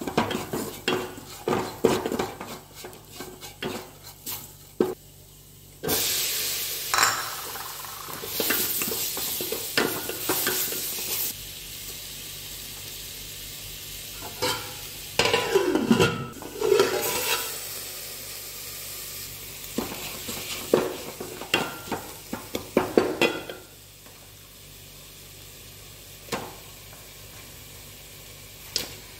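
Wooden spatula stirring and scraping fried onions and spices around a metal pot, in quick knocking strokes. About six seconds in, a loud sizzle of frying starts suddenly and settles to a steady hiss, with more bursts of stirring strokes later.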